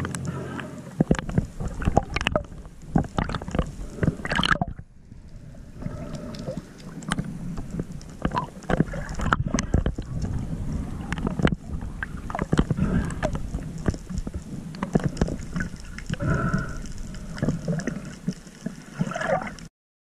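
Underwater sound: water gurgling and moving, with many irregular sharp clicks and knocks, as a speared fish is handled on the spear shaft and line. It cuts off suddenly near the end.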